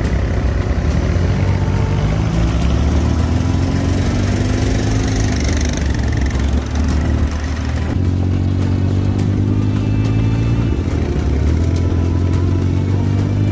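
Dune buggy engine running under throttle on a dirt track. Its pitch climbs as it accelerates, eases off briefly about halfway through, then climbs again twice.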